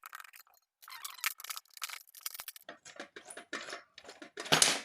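A 14 mm spanner working the nuts on a metal LED floodlight housing: a run of short scraping clicks of metal on metal, loudest near the end.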